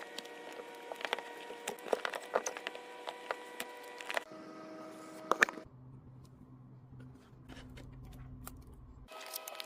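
Scattered sharp clicks and taps from the mouse and its box being handled, over a steady humming tone whose character changes abruptly about halfway through and again near the end.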